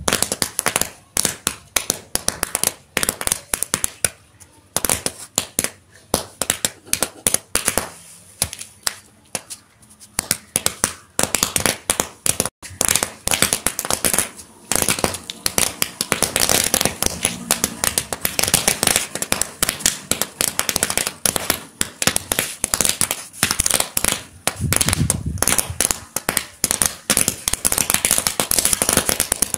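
A large heap of paper roll caps going off in a chain: a dense, irregular stream of sharp pops that grows into near-continuous rapid crackling about halfway through.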